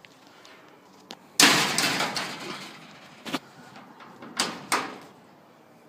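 Wire birdcage door shut with a loud metallic clatter about a second and a half in, followed by three short sharp clicks.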